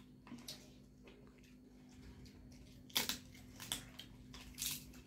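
Close-up eating sounds: crisp fried papad being broken and crunched and fried chicken being bitten and chewed, a run of small cracks and clicks with one sharp crack about three seconds in.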